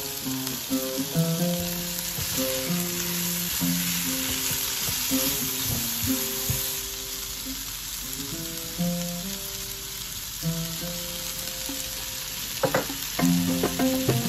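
Bulgur, lentils and vegetables sizzling in a frying pan as they are stirred with a spatula, a steady hiss throughout. A plucked-string melody plays over it, and a few sharp clicks come near the end.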